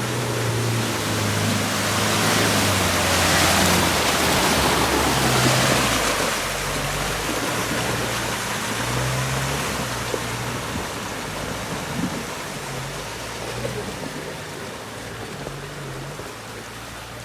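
Mitsubishi Triton pickup engine revving up and easing off while driving off-road, under a rushing, water-like noise that is loudest a few seconds in and then fades.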